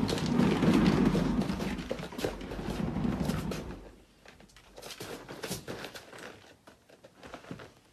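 A cat exercise wheel rolling as a cat runs in it, a low rumble with clicks and rattles that stops about four seconds in. After that come a few faint taps.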